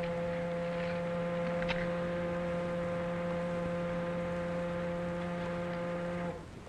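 A foghorn blowing one long, steady, deep blast that cuts off sharply near the end.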